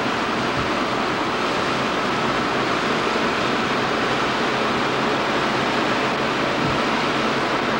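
Small waves washing up on a shore, heard as a steady rushing noise.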